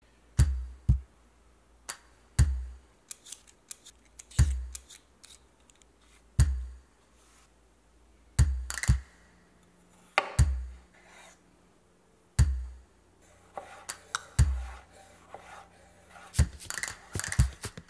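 Background music with a deep beat about every two seconds, over sharp scraping clicks of a raw potato being peeled. Near the end come quick cuts of a chef's knife slicing potato on a wooden chopping board.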